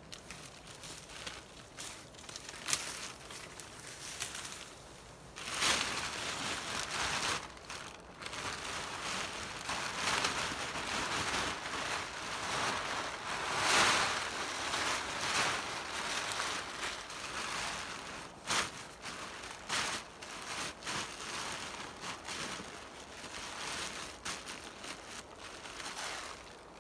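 Plastic tarp being dragged, shaken out and bunched up, its sheeting rustling and crinkling, loudest about halfway through.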